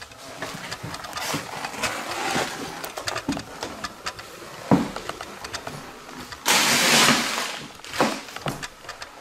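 Footsteps crunching over paper and debris on a floor, with scattered clicks and knocks. A sharp knock comes about five seconds in, and a loud rustling scrape lasts about a second around seven seconds in.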